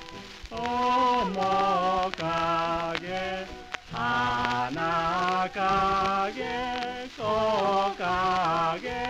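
A 1939 Taihei 78 rpm record of a Japanese film theme song playing: orchestral accompaniment with a melody moving in short, separate phrases.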